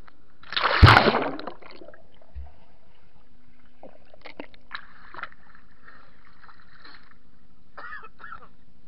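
Camera handling noise: a loud rubbing burst with a knock about a second in as the camera is grabbed and its lens covered, followed by faint rustling and clicks.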